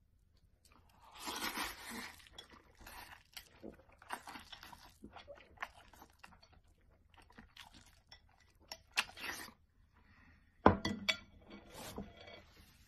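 Close-miked eating sounds: instant noodles being slurped and chewed in irregular bursts, with scattered clicks and one sharp clink near the end, the loudest sound.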